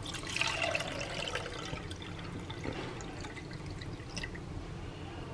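Thick wheat-flour milk poured from a steel bowl through a stainless-steel mesh strainer into a cup: a soft trickling pour, strongest in the first second or so, then thinning, with a few faint clicks.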